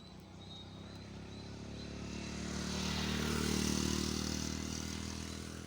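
A motor vehicle passing by: its engine grows louder to a peak about three to four seconds in, then fades away.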